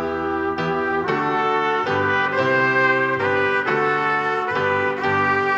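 Trumpet playing a melody over chordal instrumental accompaniment, the notes changing about every half second.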